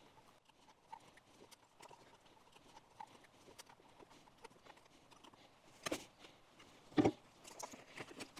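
Sped-up handling noises of butyl sealing tape being unrolled, with its paper backing peeled and pressed around a plastic cable hatch flange. Faint scattered ticks and rustles, with two louder crackling rustles about six and seven seconds in.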